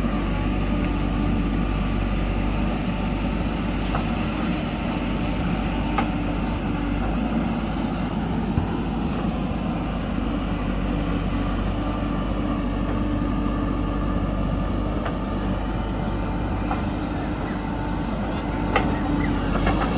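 Diesel engine of a JCB backhoe loader running steadily while working, with a few short knocks near the middle and near the end.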